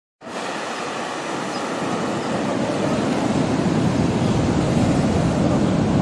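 Ocean surf washing onto a beach: a steady rush of breaking waves that starts abruptly just after the beginning and grows a little louder and fuller a couple of seconds in.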